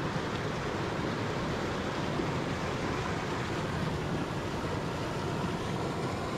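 Shallow, rocky trout stream running over stones, a steady wash of moving water.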